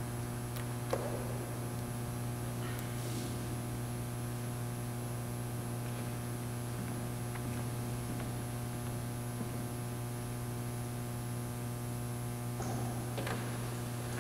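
Steady low electrical mains hum, with a faint knock about a second in and a few soft scuffs near the end.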